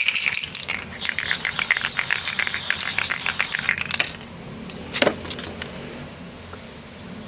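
Rapid clinking and rattling of small hard objects for about four seconds, then a single sharp knock about five seconds in.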